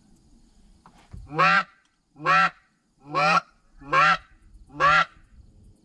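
Goose call blown by a hunter: five loud honks at a steady beat, about one a second, each breaking from a low note up to a high one. Hail calls meant to turn passing geese toward the blind.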